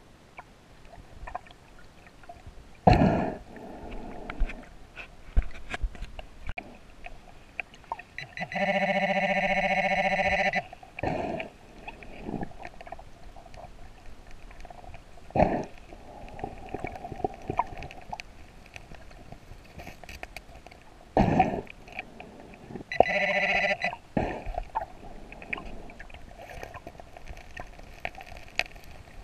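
Scuba diver breathing through a regulator underwater. There are two loud buzzing inhalations, one about two seconds long and a shorter one near the end. Between them come bubbling exhalations and several sharp knocks.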